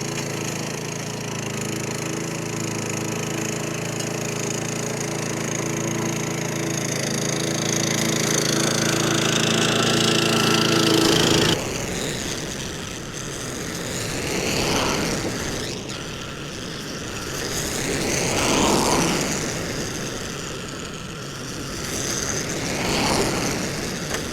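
Remote-controlled tracked mower's engine running steadily while it mows long grass, growing louder until the note cuts off abruptly about halfway through. After that, a rougher noise swells and fades three times.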